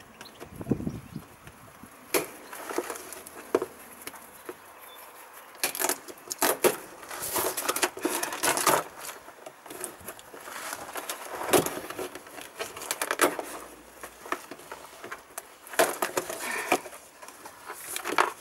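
Cardboard shipping box being opened by hand: its plastic strap cut, flaps pulled open and loose foam packing peanuts rustled, in irregular crackles, scrapes and knocks.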